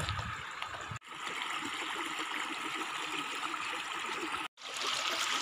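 Shallow rocky creek running steadily over stones. The sound drops out briefly twice, about a second in and again near the end.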